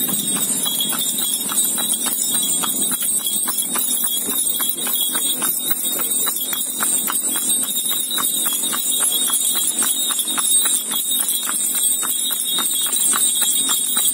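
A cart horse's hooves clip-clopping on an asphalt road in a steady, quick rhythm of about four strikes a second.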